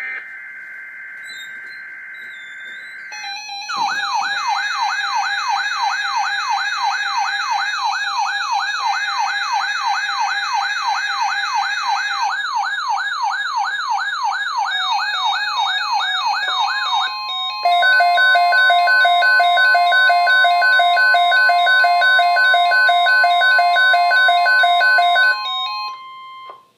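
Emergency Alert System sounding over NOAA Weather Radio for a severe thunderstorm watch. It opens with about three seconds of screeching digital data tones. Next comes an electronic siren alarm wailing up and down about twice a second, then rapid pulsing beeps over a steady alert tone, which cut off suddenly near the end.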